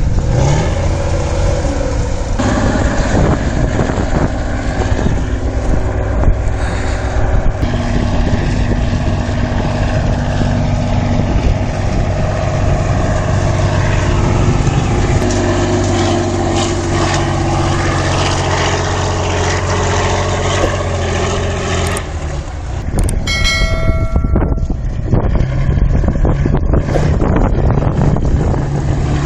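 Kirovets K-701 articulated tractor's diesel engine running under load as it pushes through deep snow, its pitch shifting as it works. About three-quarters of the way through there is a brief high-pitched tone.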